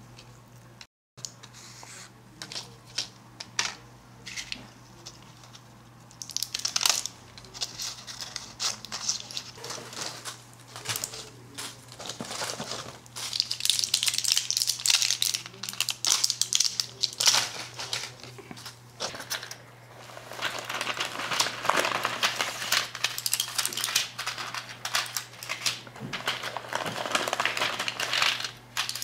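Plastic-and-foil blister packs, cardboard and a paper envelope handled by gloved hands: crinkling and rustling with small clicks, coming in bursts that grow busier after the first few seconds, over a steady low hum.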